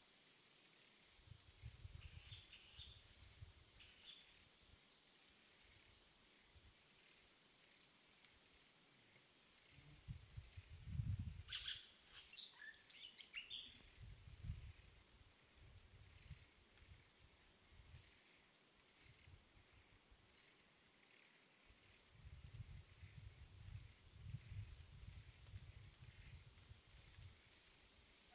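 Near silence: faint outdoor ambience with a steady high-pitched whine, a few stretches of low rumble and brief faint chirps, the chirps clustered near the start and just before the middle.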